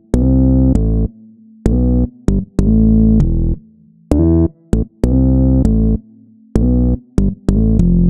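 Background electronic music: keyboard chords in short, choppy stabs with brief silent gaps between them.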